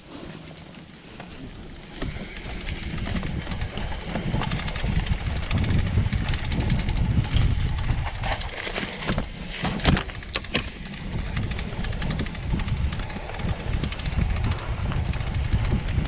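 Wind buffeting the microphone over the rumble and rattle of a mountain bike riding a rough trail. It jumps from quiet to loud about two seconds in, with a few sharper knocks around the middle.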